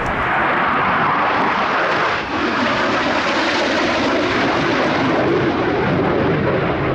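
Military jet aircraft in flight, its engine noise loud and steady throughout, with a brief dip a little over two seconds in.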